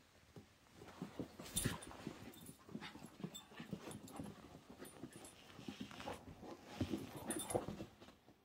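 Basset hound and corgi play-wrestling: irregular scuffling with short dog vocalisations. It is loudest about a second and a half in and again near the end.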